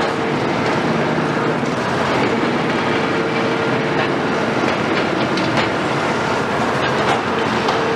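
Cat 374 high-reach demolition excavator with a Cat C15 diesel, working steadily under load, its engine and hydraulics humming. Over it comes a dense crackle and rattle of concrete being broken and debris falling.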